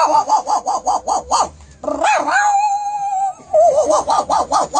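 A dog vocalising: a quick run of short yips, one long held whine, then a wavering stretch and more yips near the end.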